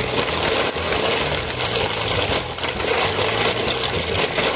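Dry pasta poured from a plastic packet into a pot of boiling broth: pasta rattling and the packet crinkling over the bubbling boil, with a steady low hum underneath.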